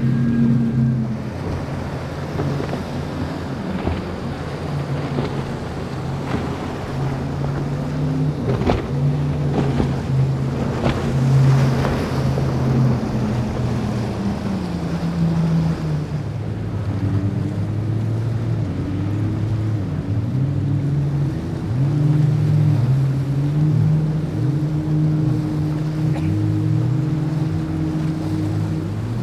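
Outboard motors on speeding center-console powerboats running hard, a steady drone whose pitch wavers up and down in the second half, over the hiss of spray and waves. A few sharp knocks come about a third of the way in.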